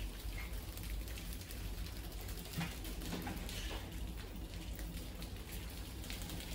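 A crowd of rats scurrying and scrabbling, a dense patter of small claw ticks and scratches on the floor, glass and wire mesh, with rustling in scattered grain, over a steady low hum.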